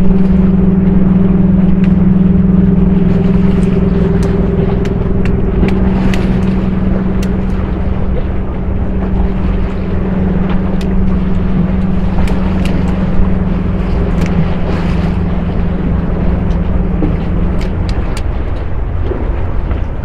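An engine running steadily, a low even hum that fades out near the end, over a constant low rumble.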